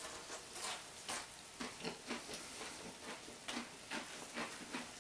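Hot lard sizzling faintly in a roasting dish of freshly baked toad in the hole, with irregular small crackles and pops.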